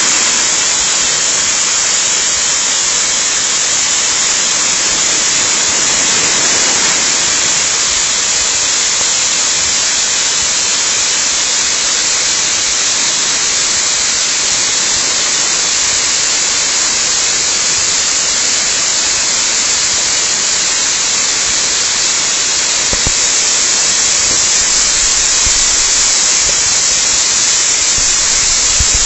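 Waterfall: a steady, dense rush of falling water, a loud hiss with no change in level. A couple of brief low thumps come near the end.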